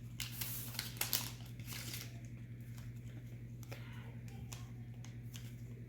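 Baseball trading cards being handled and flipped through: soft papery slides and clicks, busiest in the first two seconds, over a steady low hum.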